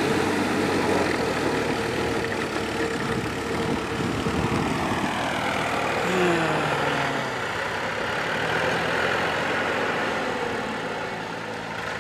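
Diesel farm tractor engine running steadily under load as it pulls a mud puddler through a flooded paddy field. The engine note shifts about halfway through.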